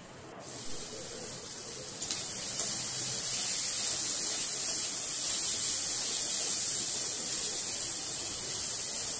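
Chicken pieces sizzling as they fry in hot oil in a steel kadai. It is a steady hiss that grows louder about two seconds in.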